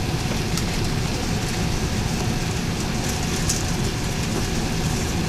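Airbus A380 cabin noise on the runway: a steady, loud rumble of the four engines and the wheels, with the cabin rattling, as the airliner rolls for takeoff.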